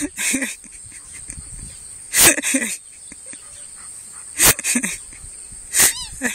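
Squeaky dog toy squeaking in short bursts, about four times, as a young dog chews on it.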